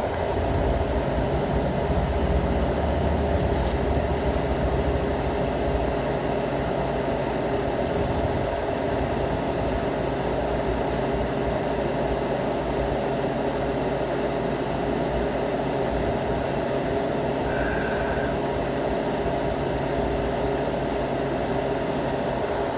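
Steady mechanical hum of running machinery, with several steady tones and a low rumble that eases a few seconds in. There is a brief click near the start.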